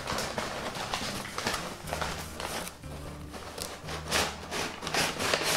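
Crumpled brown kraft packing paper rustling and crinkling as it is pulled out of a cardboard shipping box.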